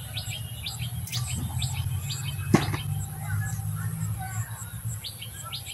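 Small birds chirping in quick, repeated high notes over a steady low hum, with one sharp click about two and a half seconds in.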